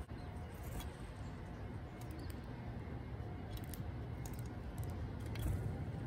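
Backyard ambience: a steady low rumble, with a few faint, short, high-pitched bird chirps scattered through.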